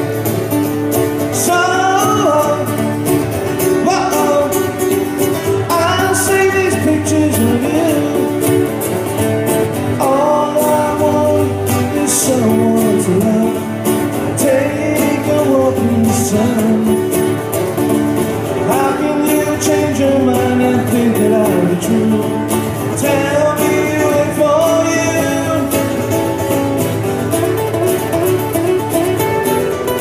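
Live acoustic guitar music: a melody line moving over steady strummed chords.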